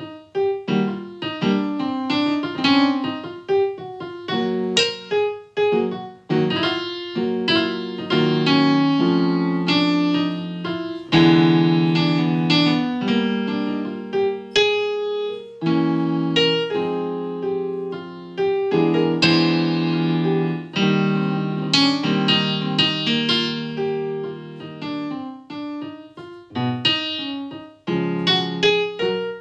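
Solo piano playing chords under a melody line, the notes struck and left to ring and decay, loudness rising and falling with the phrases.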